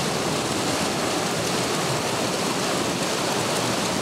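Steady rushing of a fast-flowing irrigation canal, its water churned and splashed by a wild Asian elephant struggling in it.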